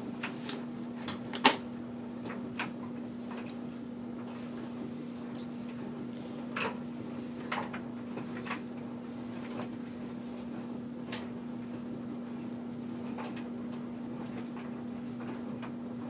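Disinfectant wipe rubbed around the rubber door gasket inside a front-load washing machine to clean off mold: scattered soft rustles and bumps, with a sharp click about a second and a half in, over a steady low hum.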